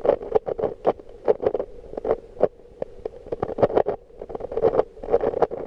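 Rubik's-brand speedcube being turned underwater, its layers clicking in a rapid, irregular string of short clicks, several a second.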